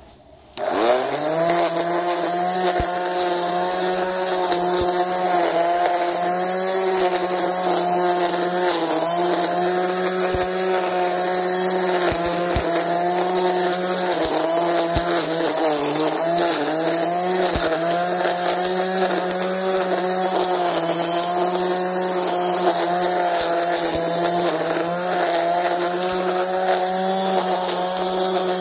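Einhell electric nylon-line string trimmer starting about half a second in: its motor whine rises quickly to a steady high pitch, with the whir and hiss of the spinning line cutting through dense weeds. The pitch dips briefly a few times.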